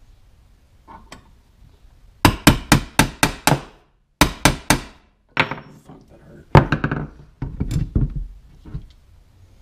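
Hammer blows on the steel parts of a Saiga rifle being taken apart: a quick run of about seven sharp taps, a short break, about four more, then scattered knocks and metal clunks.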